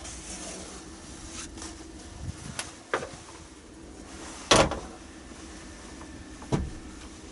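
A few sharp knocks, the loudest about four and a half seconds in, with smaller ones near three and six and a half seconds, over a faint steady hum.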